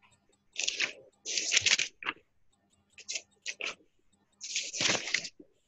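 Paper rustling and crackling in several irregular bursts, the longest near the end: pages being turned next to a student's unmuted microphone, heard over a video-call connection.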